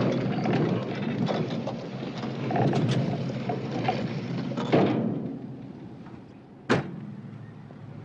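A heavy prison door rumbling and clattering as it is worked, fading out about five seconds in, then one sharp, loud slam.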